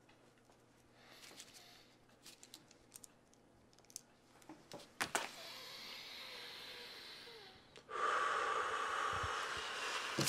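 Quiet room with scattered small clicks and knocks, the sharpest two about five seconds in, then a steady hiss that grows louder about eight seconds in.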